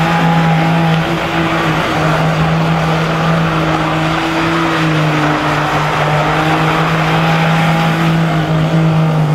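Daewoo Matiz hatchback spinning donuts on loose dirt: its small engine held at steady revs while the front wheels spin and throw up dirt.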